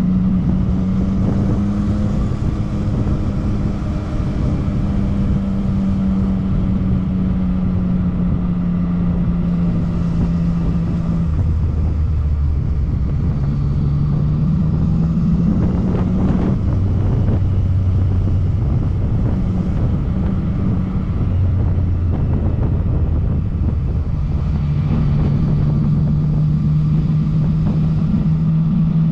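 Yamaha MT-09 Tracer's inline three-cylinder engine running on the move, with wind and road noise. Its note drops about a third of the way through and rises again near the end, and there is a brief swell of noise midway.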